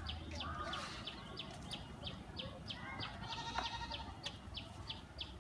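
Outdoor animal sounds: short high chirps repeating about three times a second, with a faint pitched call about three seconds in.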